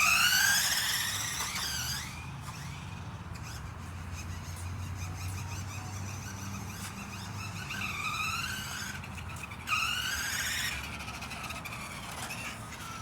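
Remote-control car's motor whining, its pitch rising as the car speeds up right at the start and then falling away. It whines up and down twice more about eight and ten seconds in.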